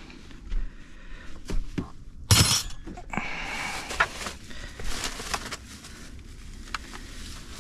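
Hard objects being handled: scattered knocks and clinks, with one loud, sharp crash about two and a half seconds in, followed by a few seconds of rustling and clatter.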